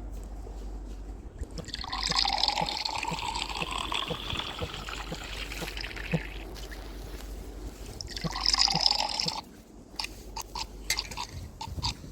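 Liquid running in two stretches, one of about four and a half seconds and a shorter one of about a second and a half, with small scattered clicks and drips around them.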